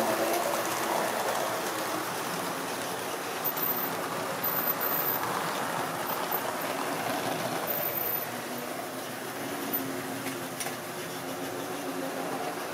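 Tri-ang OO-gauge model train running on the layout track: a steady running noise of wheels on rails and motor, loudest at first as the coaches pass close, then easing off after about two seconds and staying even.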